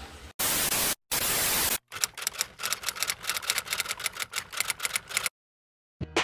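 Two bursts of static hiss, each under a second long, followed by rapid typewriter key clacks, about seven or eight a second for some three seconds: an edited-in typewriter sound effect for text typed onto the screen.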